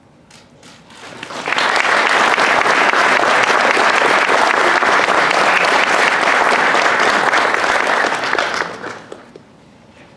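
An audience applauding: a few scattered claps swell into full applause about a second in, hold steady, then die away near the end.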